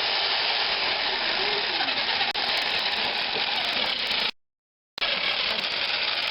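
Electric jigsaw running steadily, cutting into a pumpkin. The sound breaks off abruptly for about half a second a little past the middle, then carries on at the same level.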